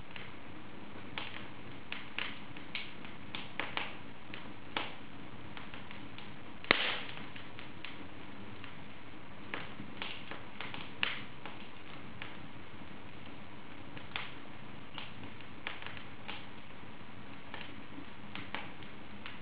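Wood fire burning in an open fireplace: irregular sharp crackles and pops over a steady low hiss, with one louder pop about seven seconds in.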